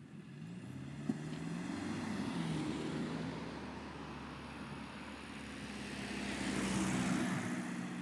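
Cars passing on a road: engine hum and tyre noise swelling as one goes by early on and another, louder, passes about seven seconds in. A single sharp click sounds about a second in.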